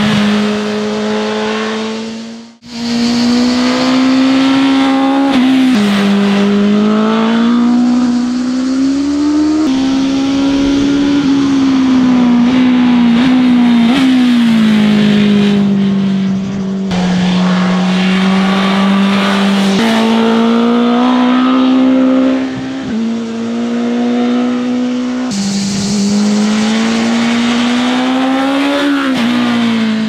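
BMW S1000RR inline-four sport bike engine running hard through bends. Its pitch climbs and falls with the throttle and drops sharply at several gear changes, with a brief dropout near the start.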